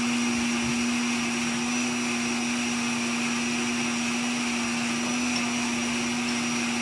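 Countertop blender motor running steadily with a constant hum and whir, blending a milk-based smoothie that is just about ready.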